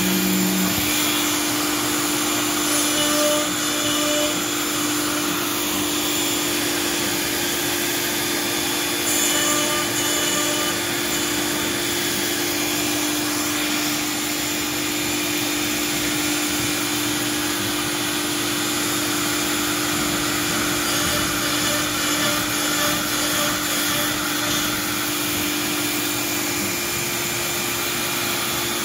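Makita compact router spindle on a CNC machine running steadily as it mills 1/2-inch MDF, giving one constant whine over the hiss of cutting and of dust-collection suction through the brush dust shoe.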